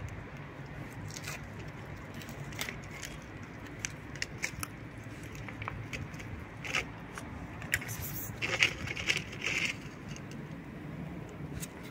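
Thin aluminium cat-food tray and its foil lid crinkling and clicking against a ceramic plate as the wet food is squeezed out: a scattered run of short clicks and crinkles, loudest in a cluster about nine seconds in, over a low steady hum.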